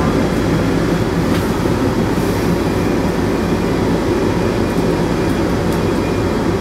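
A steady, loud low rumble with a faint hum, unchanging throughout. A few faint thin snips of grooming shears cutting hair come over it.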